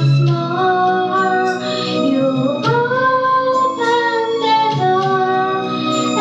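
A young girl singing into a microphone with instrumental accompaniment, holding notes and sliding between pitches.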